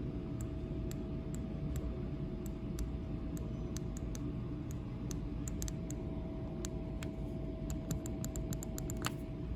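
Steady hum of an Otis elevator with a thin steady tone that stops near the end, while irregular sharp clicks come and go over it.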